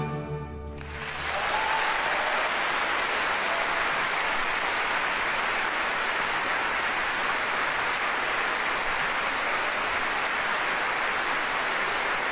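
An orchestra's last chord dies away in the first second, then a theatre audience applauds, steady and loud.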